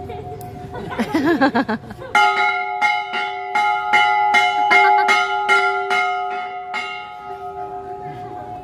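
Large brass temple bell struck rapidly by its clapper, about three strikes a second for some five seconds as a German Shepherd tugs the bell rope, then left ringing and fading. A short wavering voice is heard about a second in, just before the strikes begin.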